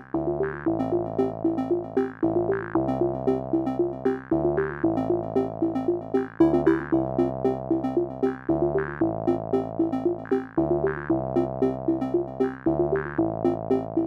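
Background music: a synthesizer playing a quick, repeating pattern of notes over a bass line that changes about once a second.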